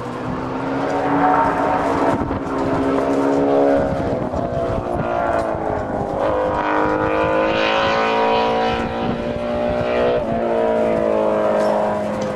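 MotoCzysz C1 prototype racing motorcycle engine running hard on track. It holds a steady note, then climbs in pitch for several seconds as the bike accelerates, and drops suddenly about ten seconds in.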